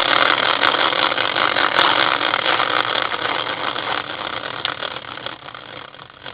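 Prize wheel spinning, a dense rapid ticking that dies away gradually over the last few seconds as the wheel winds down.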